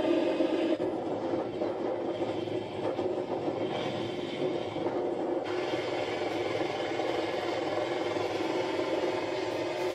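Steady mechanical drone, like an engine running, with no clear rhythm.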